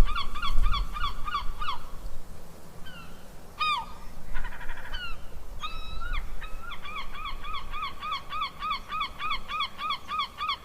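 Cranes calling: a fast, regular run of repeated calls, about five a second, breaks off about two seconds in for a few scattered calls and a short rattle, then starts again about seven seconds in. A low rumble lies under the first two seconds.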